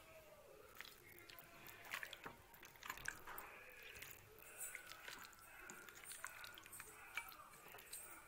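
Faint wet squelching of a hand kneading chicken pieces in a thick spiced marinade in a glass bowl, with many small irregular clicks.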